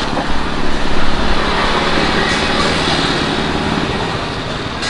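Motor vehicle running close by, a steady engine and road noise that swells in the first second or two and then slowly fades.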